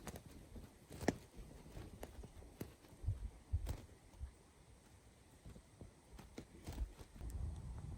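Twigs crackling in a small wood-burning stove: sparse sharp snaps and pops, a second or so apart, with some low dull thumps.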